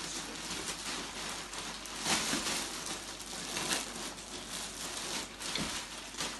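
Thin red plastic sheeting being crumpled and rummaged through by hand: a continuous crinkling rustle with louder surges about two seconds in and again near the middle.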